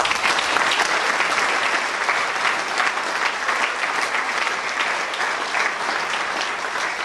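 Audience applauding: dense, steady clapping of many hands, easing slightly near the end.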